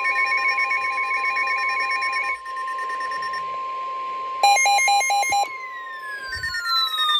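NOAA Weather Radio's steady 1050 Hz warning alarm tone for an Emergency Alert System warning, layered with other electronic alert tones: a rapid trill that stops about two seconds in, a loud burst of stepped beeps in the middle, and falling sweeping tones near the end, as the alarm tone itself begins to drop in pitch.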